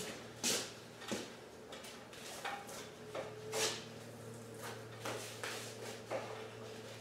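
Deer hide being cut and pulled away from the hanging carcass: irregular short tearing and scraping sounds, with two louder rips about half a second and three and a half seconds in, over a steady low hum.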